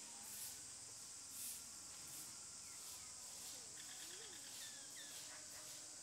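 Faint outdoor insect chorus, a steady high shrill drone that pulses about once a second, with a few faint bird chirps about halfway through.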